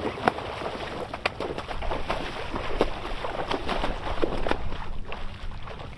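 A hooked cownose ray thrashing in shallow water at the shoreline, with irregular, uneven splashes of water.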